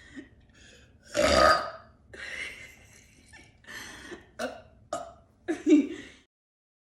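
A woman burping: one long, loud burp about a second in, then a string of shorter burps, before the sound cuts off suddenly near the end.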